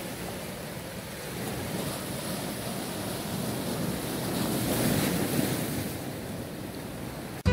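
Sea waves breaking and washing over a rocky shoreline, with wind on the microphone; the surf swells louder about two-thirds of the way in, then eases.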